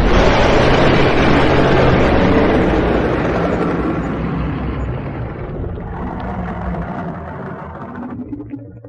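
Fantasy dragon sound effect: a long, rough, noisy blast over a low rumble. It starts loud and fades steadily over about eight seconds, cutting off near the end.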